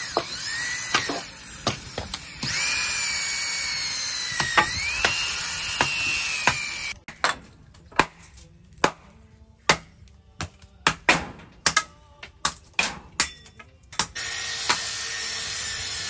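Handheld corded electric drill boring into a wooden stump, its motor whine sliding up and down in pitch as the load changes. It stops about seven seconds in, giving way to a run of sharp knocks and clicks. The drill starts again near the end.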